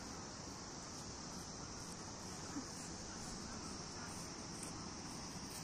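Steady high-pitched chorus of insects in the garden, over a low background hiss. There is one short tap about halfway through.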